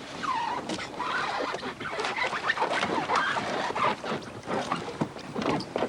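Plastic kayaks and paddles knocking and scraping in an irregular clatter as they are handled and launched at the water's edge.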